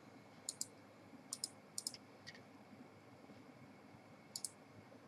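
Computer mouse clicking faintly: several short clicks, mostly in quick pairs, in the first two and a half seconds, then one more pair near the end.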